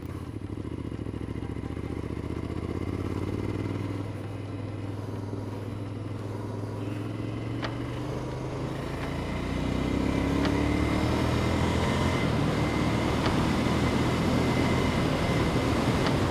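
Motorcycle engine running while the bike is ridden, heard from the rider's helmet camera. About ten seconds in, the engine note rises and grows louder as the bike accelerates. A few light ticks are heard along the way.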